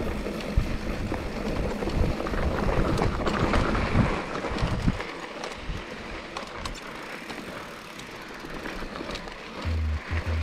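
Mountain bike riding over a rocky, gravelly dirt trail: tyres crunching on stones, the bike rattling over bumps, and wind buffeting the microphone. It is rougher and louder for the first five seconds or so, then settles to a quieter rolling noise with scattered clicks.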